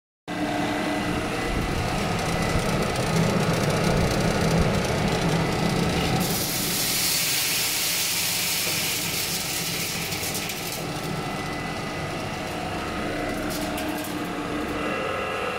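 Roasted-coffee destoner running steadily under its motor inverter, a continuous machine noise with a few steady tones. From about six to eleven seconds in, a louder hissing rush as roasted coffee beans are poured into its stainless steel chute.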